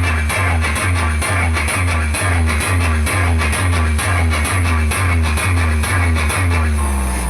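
Instrumental stretch of a Brazilian funk track: a heavy bass beat about twice a second with a plucked, guitar-like figure over it. Near the end the beat stops and a held bass note fades out.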